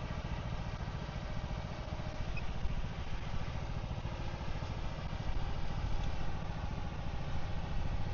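A vehicle engine idling steadily with an even low rumble.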